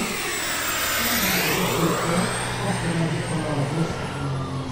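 Large radio-controlled model turboprop trainer flying a low pass, its engine and propeller note sweeping down in pitch and back up in the first two seconds as it goes by.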